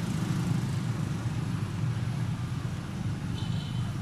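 A steady low motor rumble, with a brief high-pitched squeal near the end.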